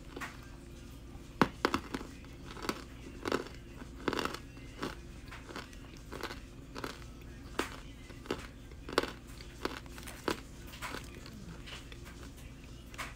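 A chunk of compressed cornstarch from a Crunchmuncher brick bitten and chewed close to the microphone: a string of sharp, dry crunches at uneven intervals, the loudest about a second and a half in, thinning out near the end.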